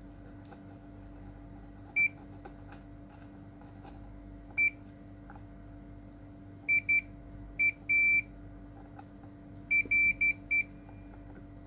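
A series of about ten short electronic beeps at one high pitch, irregularly spaced, some in quick pairs and runs, with one held a little longer, over a steady low electrical hum.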